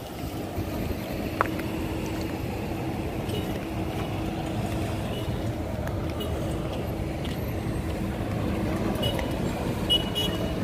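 Steady vehicle and traffic noise: a low rumble with a steady engine-like hum through most of it.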